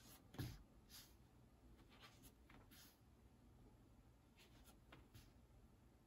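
Faint rustling and brushing of handmade paper as a book page is turned by hand, with a soft thump about half a second in and light scattered paper sounds after it.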